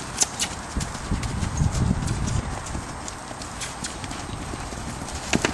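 Hoofbeats of two mustangs, a mare and a gelding, going around together on the dirt footing of a round pen: a quick, uneven run of dull thuds and sharper clicks, heaviest about two seconds in.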